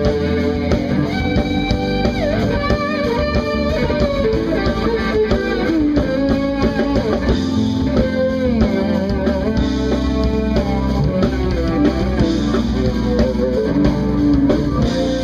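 Jazz-fusion band playing: a lead electric guitar with bent notes over bass guitar and drum kit.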